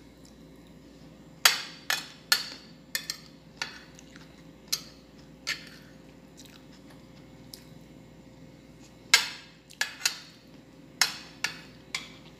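Metal spoon and fork clinking and scraping against a ceramic plate, with about a dozen sharp clinks in irregular clusters and a quieter pause in the middle.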